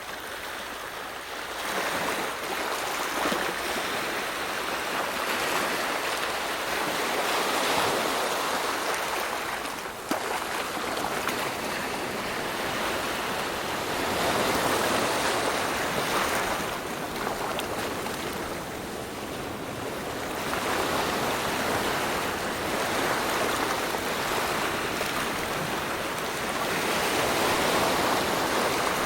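Rushing water, a steady hiss that swells and eases every few seconds.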